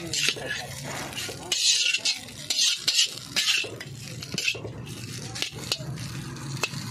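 Metal spatula scraping and clanking against a large iron wok in repeated, irregular strokes as noodles and shredded cabbage are stir-fried, with a light sizzle and a low steady hum underneath.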